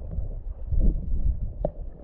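Water sloshing against a GoPro Hero 8 as it bobs at the surface, its microphone dipping in and out of the water: a muffled low rumble with a couple of soft splashes.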